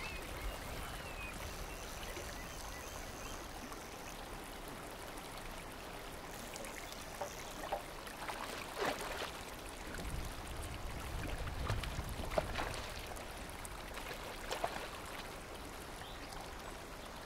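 Steady low wash of water, with a run of short splashes through the middle from a hooked fish thrashing at the surface as it is played to the landing net.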